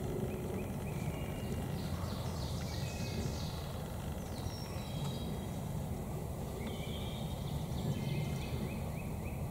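Small birds singing in series of short, quick falling notes, loudest a couple of seconds in and again near the end, over a steady low rumble of background noise.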